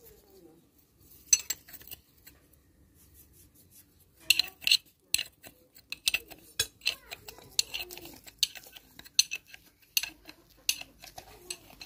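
Irregular sharp metallic clinks and taps of a steel spanner against the hex bolt heads and the differential case of a tractor's crown wheel assembly as the bolts are worked. The clinks come thickest from about four seconds in.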